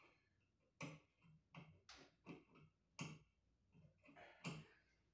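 Faint, irregular clicks and knocks, about nine or ten in a row, from hands working small parts at a ceiling fan's mounting bracket overhead.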